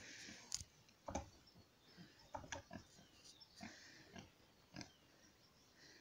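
Pigs grunting softly, a scattering of short separate grunts and snuffles, faint throughout.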